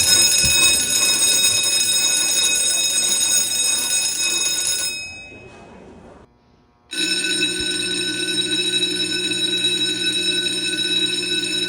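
Electric school bell ringing continuously for about five seconds. After a brief break a second school bell, with a deeper tone mixed in, rings steadily for about five seconds more.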